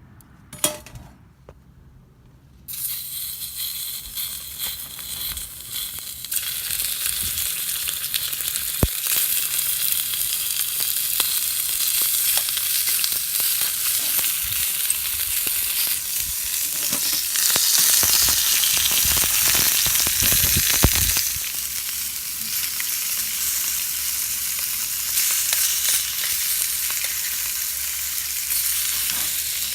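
Meat sizzling on a hot iron skillet. The hiss starts suddenly about three seconds in, after a short clink, grows louder a few seconds later, and runs on steadily with small crackles.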